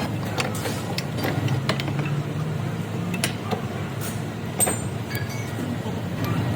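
Irregular metallic clicks and clinks over a steady low hum.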